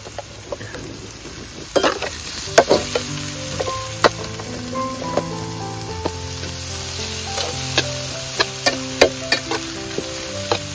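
Chopped garlic, chili and lemongrass sizzling in hot oil in a black wok, stirred with a metal spatula whose sharp clicks and scrapes against the pan come every second or so.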